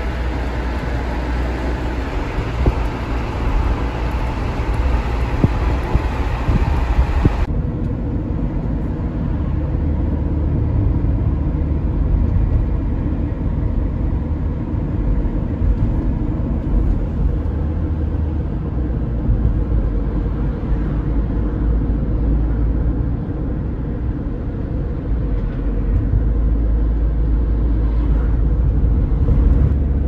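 Steady engine and road rumble inside a moving car's cabin. About seven seconds in, the higher rushing hiss drops away suddenly, leaving a lower rumble.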